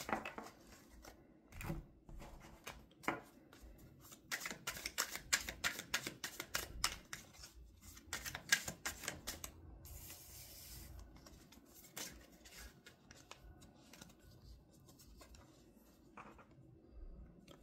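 A deck of tarot cards being shuffled by hand, the cards clicking and slapping against each other in quick runs, busiest in the middle and thinning out near the end.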